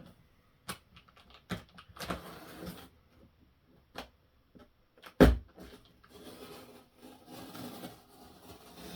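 Cardboard shipping box being handled and opened: a series of knocks and clicks with one loud thump about five seconds in, then a steady rustling scrape as the box is worked open.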